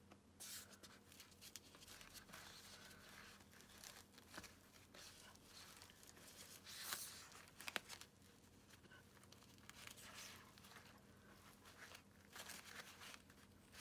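Faint rustling and rubbing of a Liros 14 mm synthetic-rope soft shackle being handled: braided rope sliding over its knot and the fabric sleeve brushing against it, with a louder scrape about seven seconds in and a sharp click just after.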